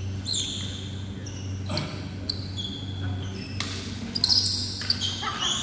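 Badminton play on an indoor court: short high squeaks of shoes on the court surface and sharp racket strikes on the shuttlecock, the loudest cluster about four seconds in, over a steady low hum.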